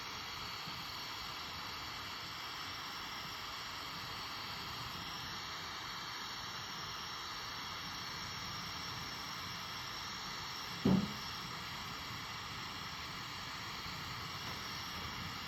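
Steady hiss of a glassworking bench torch flame, with one brief short sound about eleven seconds in.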